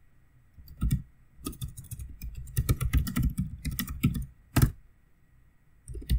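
Typing on a computer keyboard: a run of quick keystrokes with two louder single key strikes, a pause of about a second, then typing starts again near the end.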